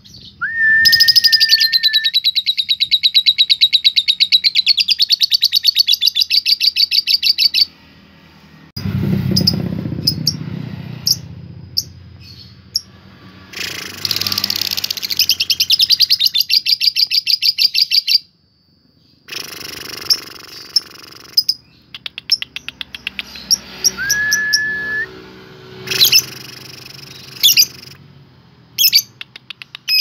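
Lovebird ngekek: long runs of rapid, high-pitched chattering trill, each lasting several seconds, three times, with a short whistle at the start of the first and third. Sharp single chirps come in between the runs, and there is a low rumbling noise about nine seconds in.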